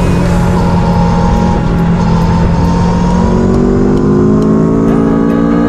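Aprilia Tuono V4 1100 Factory's V4 engine pulling the bike along: its note eases slightly downward, then rises steadily from about halfway through as the bike accelerates.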